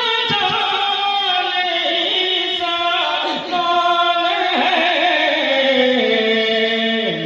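Background music: a solo voice chanting long, held notes that slide from pitch to pitch.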